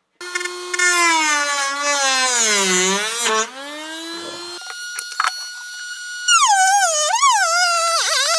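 Handheld rotary tool with a cutoff wheel whining at high speed as it cuts into a plastic tub, its pitch sagging and recovering again and again as the wheel loads up in the cut. The wheel is melting its way through the plastic rather than cleanly cutting it, as the maker thinks.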